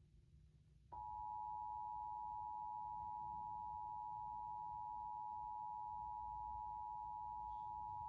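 Emergency Alert System two-tone attention signal: a steady dual tone of 853 and 960 Hz that starts abruptly about a second in and holds unchanged. It is the alert tone that announces an emergency alert message.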